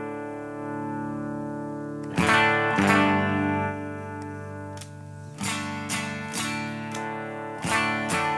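Electric guitar strumming chords through a compressor pedal with its blend turned toward the clean signal, each chord left to ring out long. Chords are struck about two seconds in, again a second later, and several more from about five seconds in.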